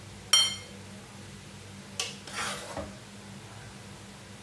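Metal ladle clinking and scraping while serving stir-fried long beans onto a plate: one sharp ringing clink just after the start, then a second clink and a short scrape about two seconds in, over a steady low hum.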